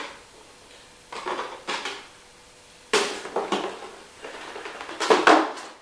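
Cardboard box and packaging being handled as a twin flash head is lifted out of it: several short bursts of rustling and knocking, with a sharper knock about three seconds in.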